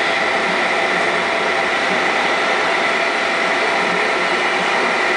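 Steady whirring and rushing of the PKP Intercity electric locomotive EU07A-003 and its train, heard at close range from the vestibule right behind the locomotive, with a steady high whine over the noise.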